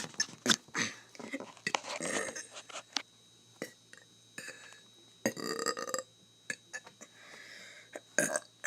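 A person burping several times, separate belches spread a second or few apart, one with a clear pitch about five seconds in, with short clicks between them.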